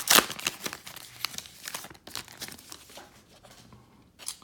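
Wrapper of a baseball card pack being torn open and crinkled, loudest in the first second and dying away over the next two or three, with one more short crackle near the end.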